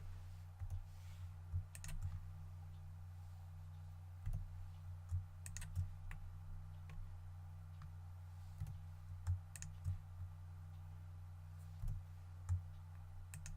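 Irregular clicks of a computer mouse and keyboard, about a dozen scattered over the stretch, over a steady low hum.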